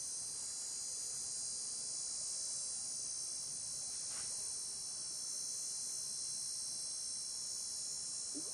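Steady high-pitched chirring of an insect chorus.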